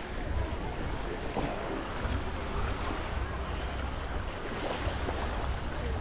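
Surf washing onto a beach, a steady rush of waves, with wind rumbling on the microphone.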